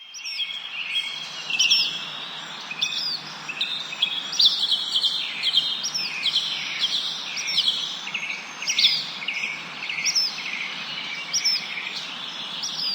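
Small songbirds chirping and singing, short high notes and trills repeating about once a second over a steady background hiss.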